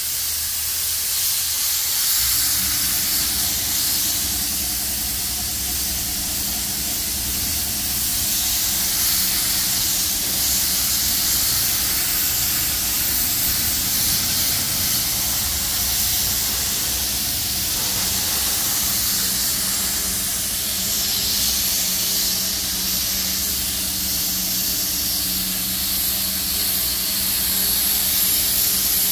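Air spray gun hissing continuously as it sprays chrome paint. A steady low hum joins underneath about two seconds in.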